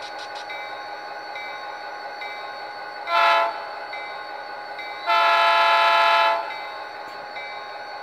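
HO-scale Athearn Genesis GP39X model diesel's onboard sound decoder sounding its multi-chime air horn: a short blast about three seconds in, then a longer blast of a little over a second. Under it runs the decoder's steady diesel engine idle.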